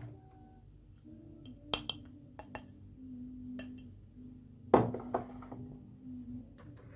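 Marbles rolling along a wooden marble run, a steady low rolling rumble broken by sharp clicks and clacks as they hit and drop between track pieces, with one loud knock about three-quarters of the way in.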